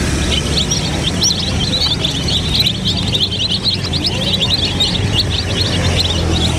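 A crowded flock of baby chicks peeping nonstop, many short high cheeps overlapping, over a steady low hum.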